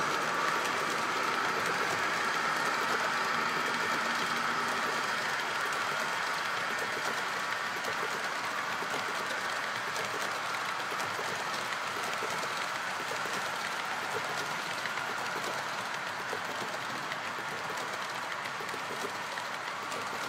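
A model coal train's cars rolling along the track in a steady run of wheel noise with faint clicks, slowly fading.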